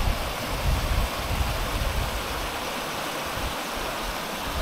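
Small rocky mountain stream running steadily over stones and little cascades, with wind buffeting the microphone in uneven gusts.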